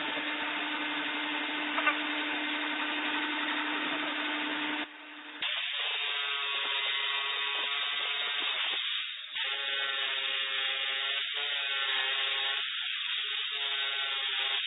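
Small electric power tool whirring steadily, dropping out briefly about five seconds in, then running again with its pitch shifting up and down in steps.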